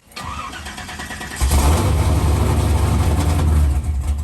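A 540-cubic-inch big-block V8 being cranked, catching about a second and a half in, then running loudly with a heavy low rumble.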